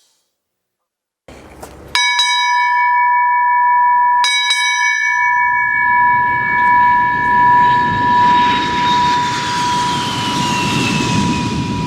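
A bell struck twice, about two and four seconds in, its tone ringing on steadily. From about halfway through, a rushing noise swells with a high whine that slides downward.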